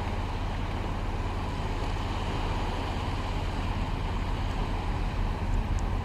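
Steady shoreline ambience: a low wind rumble with small waves washing onto a pebbly beach.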